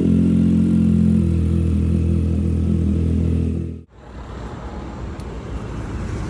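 Yamaha sportbike with an Akrapovič exhaust idling steadily after a cold start. About four seconds in the sound cuts off abruptly and a rougher, quieter engine sound takes over, from the other bike in the comparison.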